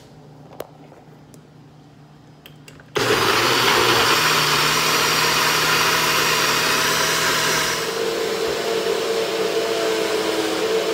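NutriBullet blender motor switching on about three seconds in and running loudly, blending a smoothie of frozen spinach, baby carrots, pineapple and milk; about eight seconds in its tone shifts higher and steadies.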